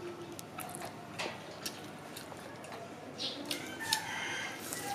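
A rooster crows in the background near the end, over scattered crisp clicks and crunches of someone biting and chewing crispy fried chicken.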